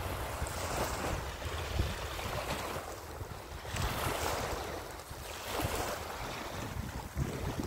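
Small waves washing and splashing against a snowy shore, surging every second or two, with wind rumbling on the microphone.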